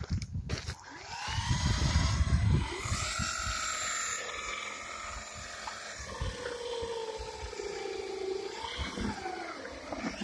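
Hart 20-volt RC truck's electric drive motor whining, the pitch rising and falling as the throttle changes. A loud low rumble runs under it for the first few seconds.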